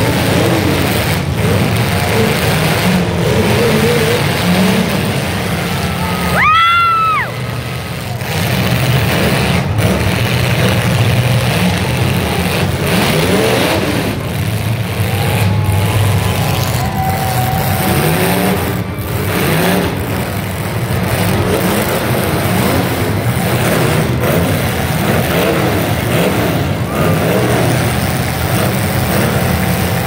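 Demolition derby cars' engines running and revving in pitch in a loud, continuous din. About six and a half seconds in, a short high tone rises and falls.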